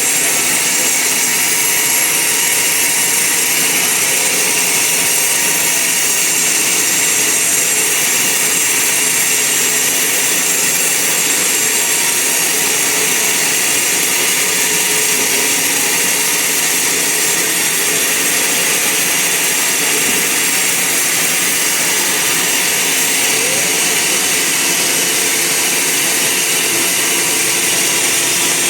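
Band sawmill running steadily.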